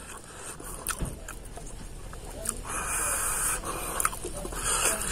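Close-up eating sounds of a man chewing rice and meat pickle eaten by hand: wet chewing and lip smacks with a few sharp clicks, and two short hissing stretches, one about three seconds in and one near the end.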